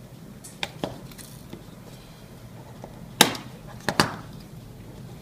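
Sharp clicks and taps of plastic and metal as a BlackBerry Z10's inner plastic frame is pried loose with a metal spatula tool and the phone is handled on a desk: two light clicks under a second in, then a few louder knocks about three to four seconds in.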